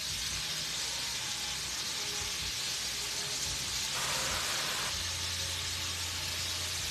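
Shrimp frying in a skillet, a steady sizzle with no breaks.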